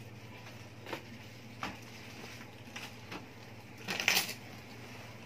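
Scattered light clicks and rustles of objects being handled on a table, the loudest a short cluster about four seconds in, over a steady low hum.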